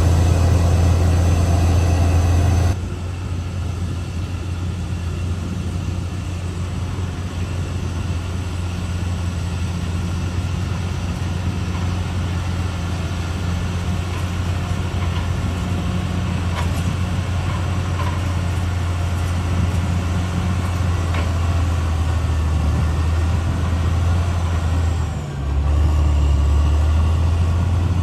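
Caterpillar D6R XL bulldozer's diesel engine running steadily with a deep hum, the sound dropping abruptly about three seconds in and dipping briefly near the end.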